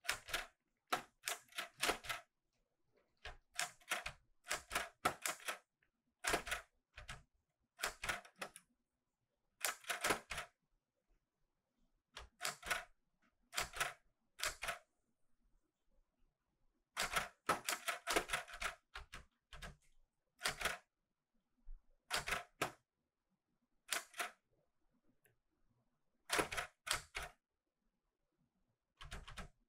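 Keys of a Clover 810S manual typewriter being struck in short, uneven bursts of a few sharp clacks, with pauses of a second or two between the bursts.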